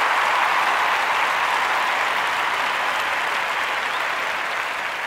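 Applause, a steady dense clatter of many hands that slowly fades out toward the end.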